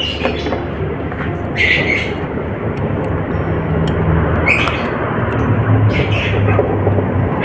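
Chef's knife sawing through grilled pork belly and knocking on a wooden cutting board, with a few short scraping strokes, over a steady low hum.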